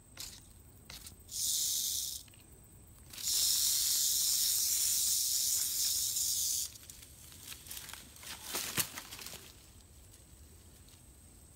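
Rattlesnake rattling its tail in warning: a short high buzz about a second in, then a longer steady buzz lasting about three and a half seconds. Dry leaves and twigs crackle a few times a little later.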